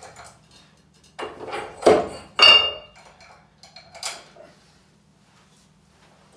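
Iron weight plates clanking together as they are loaded for a heavier lift: a run of metal knocks about a second in, two loud clanks around two seconds in, the second one ringing, and a lighter clink about four seconds in.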